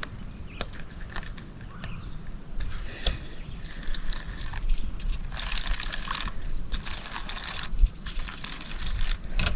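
Hand handling noise from a baitcasting reel and its line being worked to clear a backlash: scattered small clicks and scratchy rustles, with three longer scratchy rustles of about a second each in the second half.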